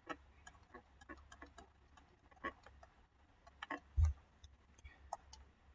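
Stylus tapping and clicking on a pen tablet while words are handwritten: light, irregular clicks, with a soft low thump about four seconds in.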